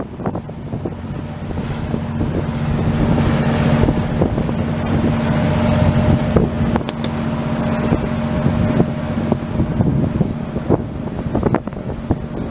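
Passenger ferry's engine humming steadily underway, with wind buffeting the microphone on the open deck.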